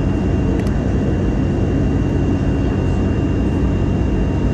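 Steady jet engine and airflow noise of an Airbus A321 in flight, heard inside the cabin from a seat by the wing, with a thin steady high tone above it.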